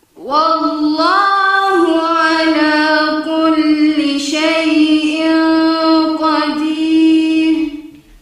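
A woman reciting Quranic verse in a melodic chant with tajweed, in one long unbroken line of about eight seconds. The pitch is held steady through long drawn-out vowels, with small rises and turns.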